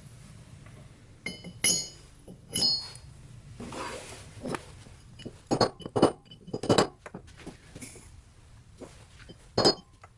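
Metal parts and tools clinking and knocking on a workbench: a string of separate sharp strikes, several of them ringing briefly.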